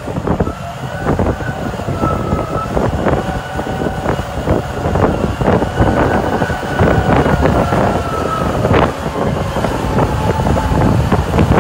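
Cat 992K wheel loader's large diesel engine working hard under load as the bucket is driven into a dirt pile, with a high whine that wavers in pitch and frequent irregular knocks.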